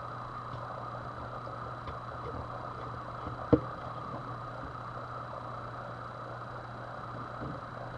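Steady mechanical hum, with a few faint light ticks and one sharp click about three and a half seconds in.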